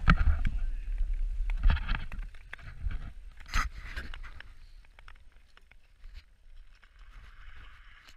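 Skate blades scraping and gliding on clear natural ice, with wind rumbling on the microphone. A few sharp strokes come in the first four seconds, then the sound fades to a faint hiss.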